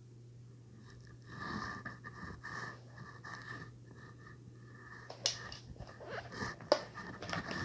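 A rubber gas mask being handled and shifted on a blanket: rubbing and rustling with a few sharp knocks, the loudest near the end. Under it run a low steady hum and a faint wheezy whistling tone that comes and goes.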